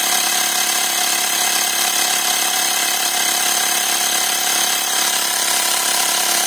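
Xiaomi portable electric air compressor running steadily as it pumps air into a bicycle tyre, the pressure climbing toward 27 PSI.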